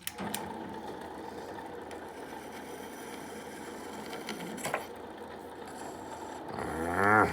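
Electric grinder running steadily while undercutting a metal part, with a short knock about four and a half seconds in.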